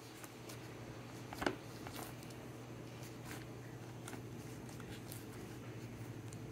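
Slime being kneaded and stretched by hand, making faint scattered clicks and pops, the loudest about a second and a half in, over a steady low hum.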